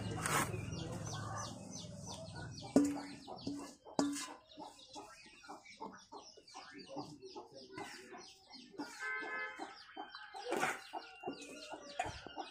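Birds clucking and chirping on and off, a fowl-like clucking. About three seconds in comes a sharp knock with a short ring, the loudest sound, and a second one a second later.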